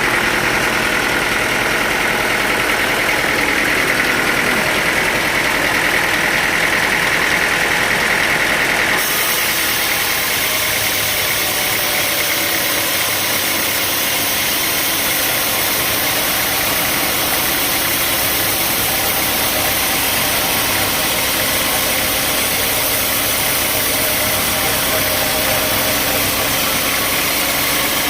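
Sawmill machinery running steadily, with an engine note throughout. The sound changes abruptly about nine seconds in, the bright band around 2 kHz dropping away.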